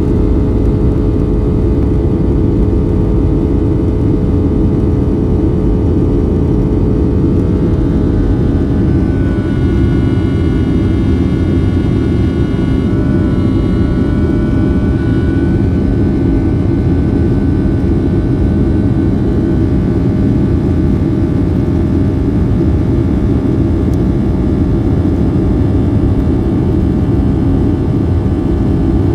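A Boeing 757-300's jet engines and airflow heard from inside the cabin: a loud, steady rumble. A cluster of higher whining engine tones comes in about eight seconds in and fades out by about twenty seconds.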